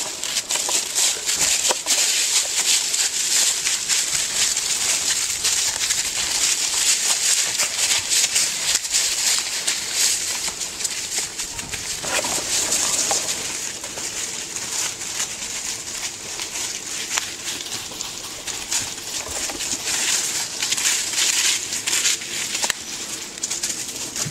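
Dry fallen leaves crunching and rustling underfoot in a steady, dense crackle, as the horse and those around it walk through the leaf litter.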